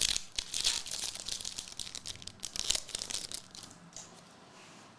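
Crinkling and rustling as trading cards and their packaging are handled: a quick run of soft scrapes and crackles that dies down about four seconds in.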